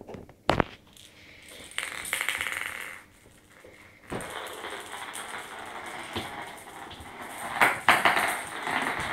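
Small plastic toy ball being batted about and rolling across a tiled and laminate floor: light clicks and rattles, with a sharp knock about half a second in and a few more knocks near the end.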